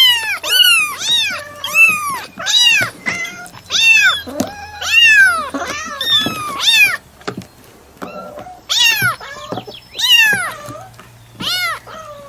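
Domestic cat meowing over and over, each meow a short call that rises and then falls in pitch. The meows come in quick succession for about seven seconds, then after a short pause three more follow, spaced out.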